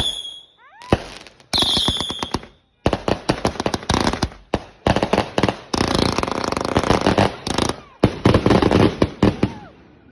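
Fireworks going off: rapid bangs and crackles, with a short high whistle about a second and a half in and a dense stretch of crackling in the latter half that dies away near the end.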